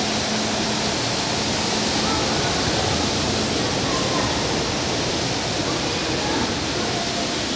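Metro train pulling out of an underground station, its running and rolling noise a steady, even roar that fills the station, with faint voices of people on the platform.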